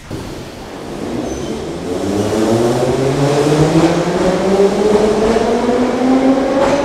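Metro train pulling out of the station, its traction motors whining in a stack of tones that climb steadily in pitch as it speeds up, over the rumble of the wheels and growing louder throughout.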